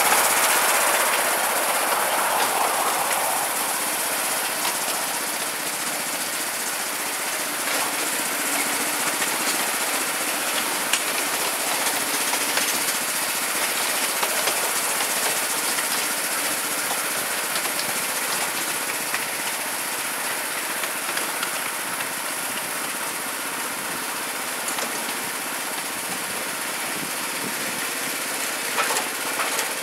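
Ride-on miniature railway train running along its track, heard from the carriage behind the locomotive: a steady engine noise with fine clicks, a little louder in the first few seconds.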